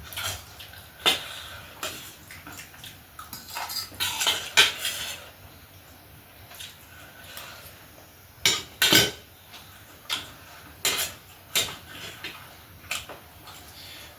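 Utensils clinking and scraping against dishes and pots in irregular knocks, with louder clusters of clatter about four seconds in and again around eight to nine seconds.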